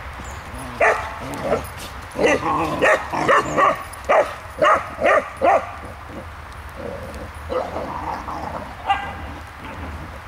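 English setter puppies barking in short, quick yaps while they wrestle in play. There is a rapid run of about a dozen barks between about one and five and a half seconds in, then a few fainter ones near the end.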